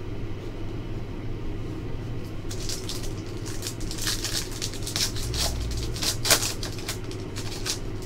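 Foil wrapper of an Upper Deck Synergy hockey card pack being torn open and crinkled: a run of sharp crackles starting about two and a half seconds in, over a steady low hum.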